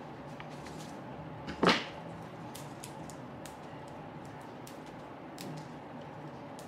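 Hand pruning shears snipping once through a flower stem, a single sharp snip a little under two seconds in. Faint light clicks and rustles of stems being handled come before and after it.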